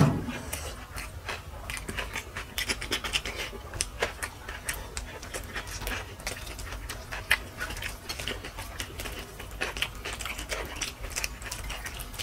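Eating noises: many small wet clicks and smacks of chewing and mouth sounds, with heavy breathing through the mouth such as the burn of hot chilli brings on.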